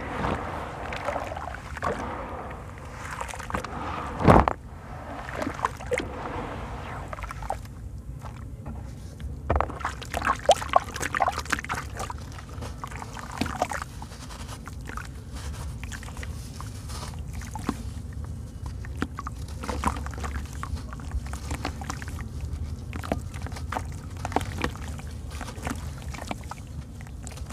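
Wet sand-cement chunks crumbled and squeezed by hand in a basin of water: gritty crunching and crackling with sloshing and dripping water. There is a sharp loud hit about four seconds in and a dense run of crackles from about ten to thirteen seconds in.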